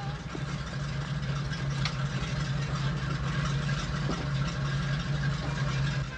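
Mack garbage truck's diesel engine idling, a steady low drone.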